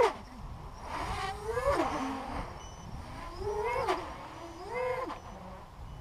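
Racing quadcopter's four T-Motor MN2206 brushless motors spinning HQ 6045 props, whining in rising and falling swoops as the throttle is punched and eased, about four surges in a few seconds.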